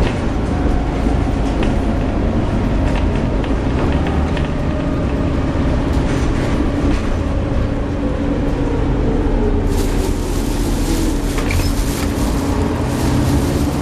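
Volvo B7TL double-decker bus under way, heard from the upper deck: a steady engine and driveline drone with a faint cooling-fan whine, and a thin tone that slowly falls in pitch across the middle seconds.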